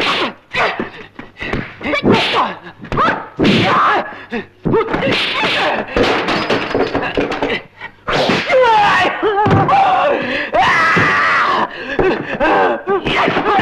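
Kung fu film fight sound effects: a run of sharp punch and kick hits, whacks and slaps, over the fighters' shouts and grunts, with longer strained yelling in the second half.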